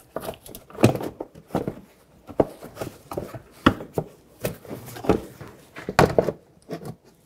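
Inner fender liner being handled and pressed into place in a car's front wheel well: a string of irregular knocks and clicks as the liner is pushed against the body.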